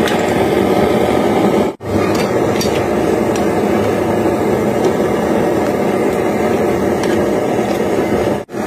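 Steady, rough noise of a pan of water boiling hard on a stove, cut off twice for an instant, about two seconds in and near the end.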